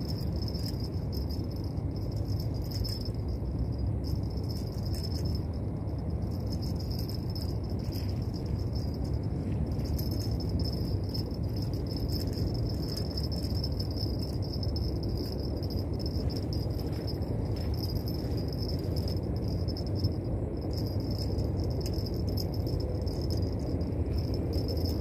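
Steady wind rumble on the microphone at the shore, under a continuous high insect buzz that drops out briefly a few times. Irregular light rattling clicks are mixed in.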